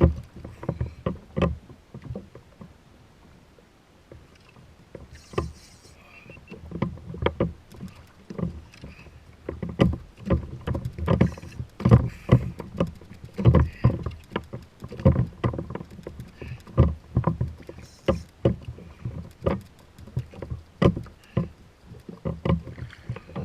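Irregular hollow knocks and thumps on a plastic kayak hull, with water slapping against it, quieter for a few seconds early on and then busier.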